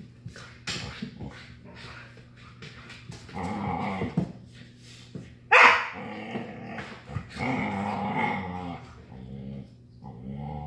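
Siberian huskies, an adult and a puppy, play-growling as they tussle, with one sharp bark about five and a half seconds in.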